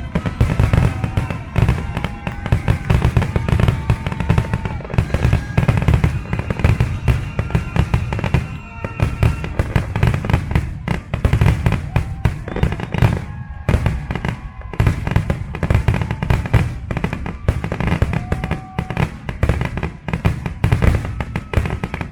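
A fireworks finale barrage: rapid, continuous bangs and crackles packed close together, with music playing underneath.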